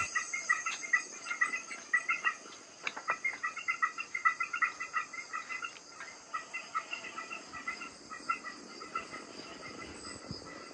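Night chorus of insects: a steady high-pitched trill under rapid, repeated chirping calls that thin out near the end.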